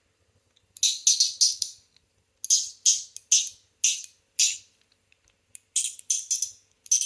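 Polished stainless steel CHENYU SYNTONY fidget toy being worked by hand: short bursts of rapid, sharp metallic clicking, repeated several times with brief pauses between.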